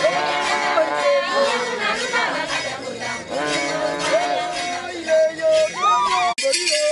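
Voices singing a traditional welcome song, holding long notes that slide between pitches. The singing breaks off abruptly for an instant near the end, then carries on.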